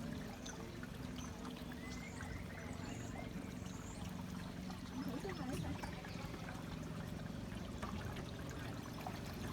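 Water trickling and splashing along the hull of a small canal boat, over the low, steady hum of its motor.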